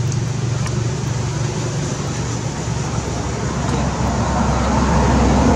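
Steady background noise of road traffic. A low engine hum fades away in the first moment, and the noise grows louder again toward the end as another vehicle draws near.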